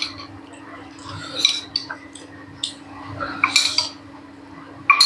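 Cutlery clinking and scraping against a plate while someone eats, in a few short scattered strokes.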